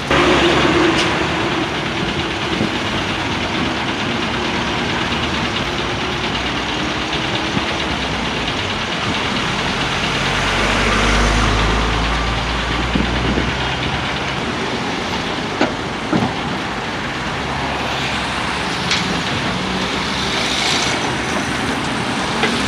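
Steady road-traffic and heavy-engine noise. A large vehicle passes close about ten to thirteen seconds in, and there are two sharp knocks shortly after.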